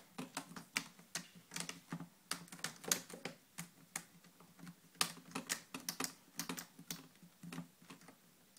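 Plastic screen bezel of an Acer Aspire One netbook being pressed back onto the lid, its clips snapping into place in a run of sharp, irregular clicks that thin out near the end.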